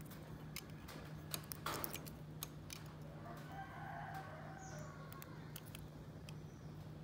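Small sharp clicks and scrapes over the first few seconds as the case back of a used Japanese wristwatch is tried for opening and proves stiff. A rooster crows once from about three to five seconds in, over a steady low hum.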